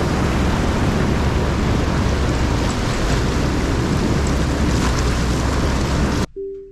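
Steady loud rush of wind buffeting the microphone over the noise of a vehicle driving, starting and cutting off abruptly near the end.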